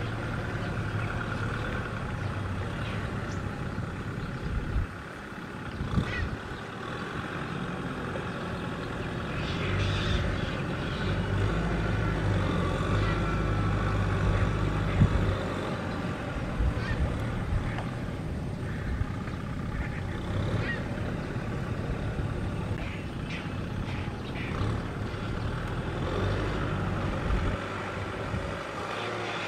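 Kubota tractor's diesel engine running under load as it pushes wet earth to build up a paddy-field bank, working harder for several seconds in the middle, with a few knocks from the implement.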